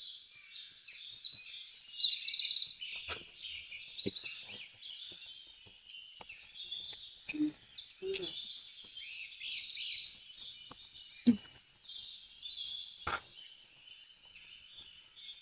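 Many small birds chirping and twittering in quick, overlapping trills, with a few sharp clicks, the loudest about thirteen seconds in.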